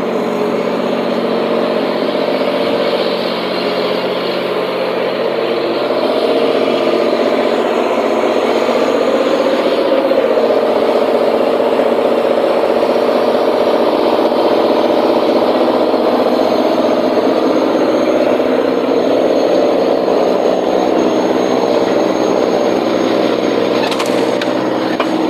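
Car-ferry barge's engines running steadily, a loud constant hum that grows a little louder about six seconds in.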